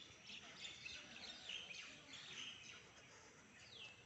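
Several birds chirping and calling in quick high notes, with a falling whistled note near the end.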